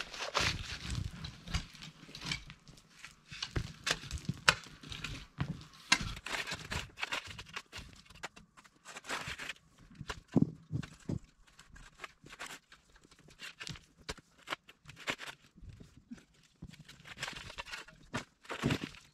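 Hand work in a dirt trench: irregular knocks, scrapes and crunching steps in soil, with no engine running.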